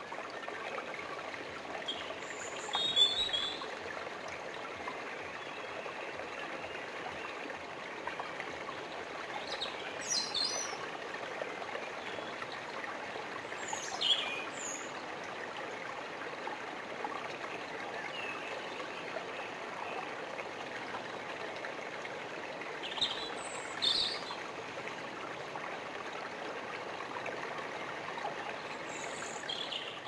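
Small spring-fed stream running over rocks with a steady, even babble. Short songbird chirps and calls break in every few seconds, the loudest a few seconds in, at about fourteen seconds, and twice in quick succession later on.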